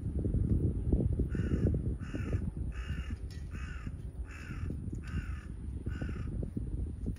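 A bird gives a series of seven short calls, evenly spaced at about one and a half a second, over a continuous low rumble.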